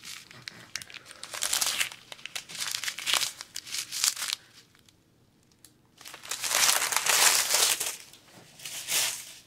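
Clear plastic packets of diamond-painting resin drills crinkling as they are handled, in uneven bursts. There is a pause of about a second and a half near the middle, and the loudest stretch follows it.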